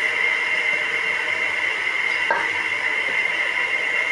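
Cooked rice being scraped with a wooden spoon from a metal colander into a steel pot, with one short knock a little over two seconds in, over a steady hiss.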